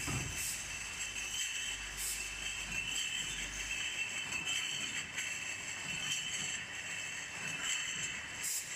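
661 EPV bottling microblock running, with a steady mechanical whine and glass beer bottles jingling and clinking against each other as the infeed screw feeds them into the filling carousel. A few sharp clicks stand out, about half a second in, about two seconds in, and near the end.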